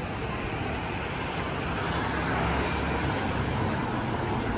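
Steady city street traffic noise, swelling a little in the middle.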